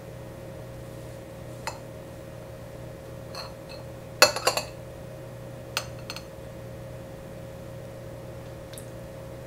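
Metal fork and knife clinking against a ceramic plate while cutting through a soft souffle pancake: a few scattered clinks, the loudest cluster about four seconds in. A steady low hum runs underneath.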